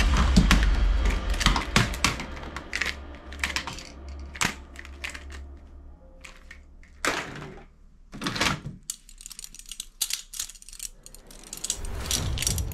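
Plastic toy guns clattering and clicking against one another as a hand sorts through a box full of them, in an irregular run of sharp knocks.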